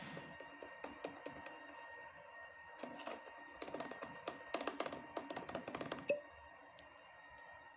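Rapid light clicks in bursts, one cluster about three seconds in and a denser run from about four and a half to six seconds, ending in one sharper click, over a faint steady hum.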